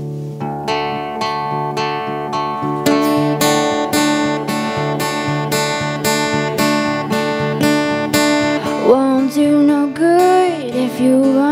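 Two acoustic guitars strumming a steady chord pattern as a song's intro, fuller from about three seconds in. A girl's voice starts singing about nine seconds in.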